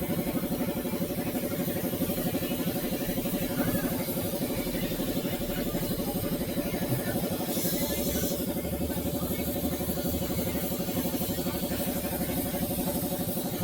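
A machine running steadily with a fast, even pulsing and a continuous hum.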